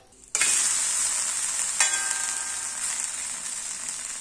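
A ragi-vegetable flatbread sizzling in sesame oil on a hot cast-iron tawa. The sizzle starts suddenly about a third of a second in as the uncooked side is turned down into the oil, then eases slowly. There is a single sharp click of the metal spatula against the pan a little under two seconds in.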